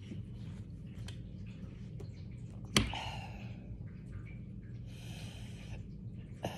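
A woman hiccuping: one sharp hiccup about three seconds in, a click followed by a short voiced 'hic', and a smaller one near the end, with breathing between them.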